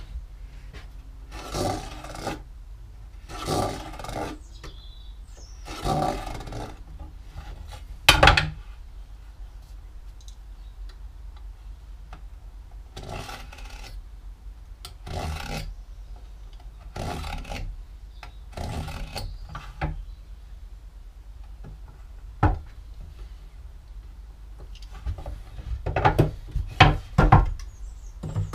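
Steel marking knife drawn along a try square, scoring lines into a pine board in a series of separate scraping strokes. A sharp knock about eight seconds in and a quick run of knocks and taps near the end as the board and square are handled.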